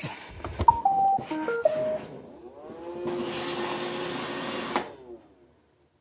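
iRobot Roomba 675 robot vacuum started with a click of its Clean button, playing a short tune of electronic beeps. Its brush and vacuum motors then whir up, run steadily for about two seconds and cut off. It stops because it sits on the rug's black pattern, which the owner takes its drop sensors to read as a ledge.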